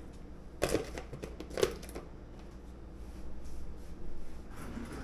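Sliced cucumbers being handled and dropped into a bowl: two light knocks about a second apart with small clicks, then a soft rustle around four seconds in.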